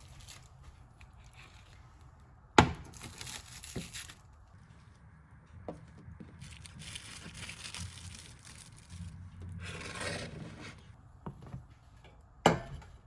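Kitchen handling sounds during food preparation: two sharp knocks, one about two and a half seconds in and one near the end, with a few lighter taps and stretches of scraping and rustling between them.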